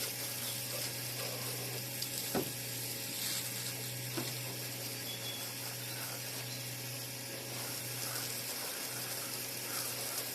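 Steady hiss of water spraying, over a constant low hum, with a few faint clicks.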